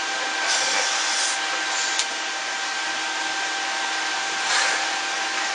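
A steady mechanical whir and hiss with faint steady whines inside it, and a single sharp slap of hand on hand about two seconds in.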